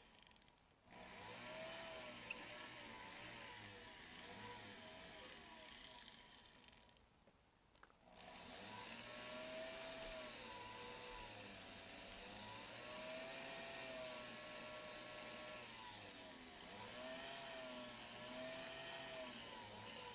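Jeweler's rotary tool running, its bit hissing against the metal and its motor pitch wavering up and down as the speed changes. It stops twice: briefly near the start, and for about a second and a half around seven seconds in.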